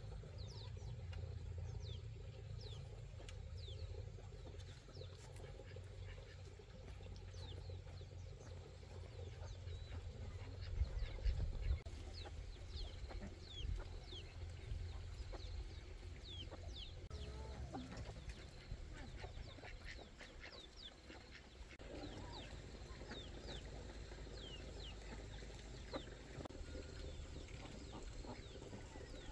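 Chickens calling: many short, high chirps that fall in pitch, over a steady low rumble.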